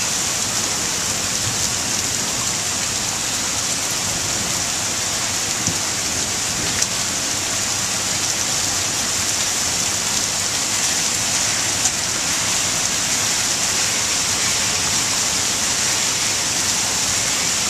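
Steady rain pouring down in a thunderstorm, an even hiss, with a couple of sharp taps about 7 and 12 seconds in.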